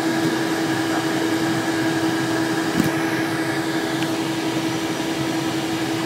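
Steady cockpit noise of a Cessna Citation Excel business jet rolling out on the runway after landing: a constant whir with a steady hum underneath, and a single brief click about three seconds in.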